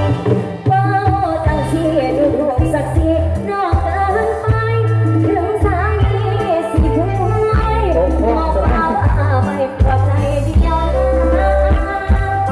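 Live band playing Thai mor lam sing music: a singer's voice over drum kit, keyboard and heavy bass, amplified through stage speakers.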